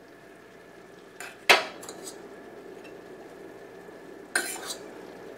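A metal spoon scooping sticky rice from a stainless steel pot into a ceramic bowl, knocking against the pot and bowl. There is a sharp clink about a second and a half in and another about four seconds in.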